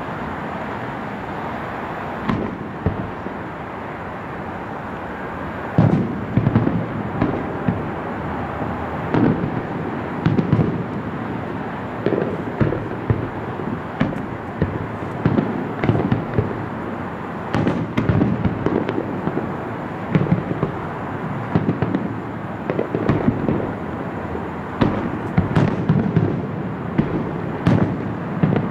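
Distant aerial fireworks shells bursting: a steady background hum with a lone pop at first, then from about six seconds in a rapid, irregular barrage of booms.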